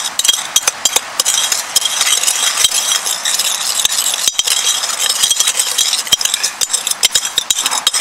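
Metal spoon stirring a dry powder mix of baking soda and xylitol in a glass bowl, scraping and clinking against the glass in many quick, irregular clicks.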